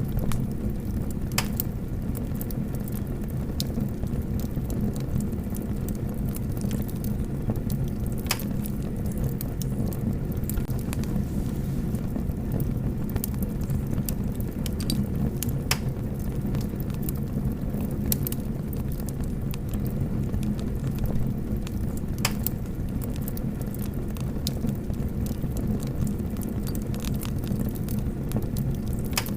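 Small fire burning with a steady low rumble and scattered sharp crackles and pops.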